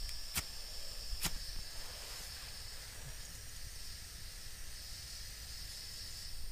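Gas hissing steadily from an MSR WindBurner canister stove's burner, with the valve open and the burner not yet lit; two sharp clicks come in the first second or so. Wind rumbles low on the microphone.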